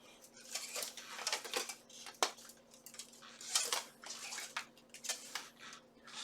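Steel armour plates clinking and rattling against each other as they are handled, in irregular clicks and scrapes, with a sharp clink about two seconds in and a louder clatter a little past halfway.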